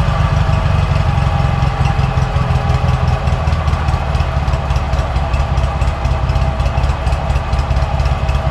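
Toro 616Z zero-turn mower's engine idling steadily.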